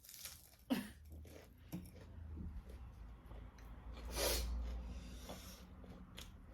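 A person eating, with a few small clicks of mouth and utensils and a loud breathy burst about four seconds in that sounds like a sneeze or sharp exhale.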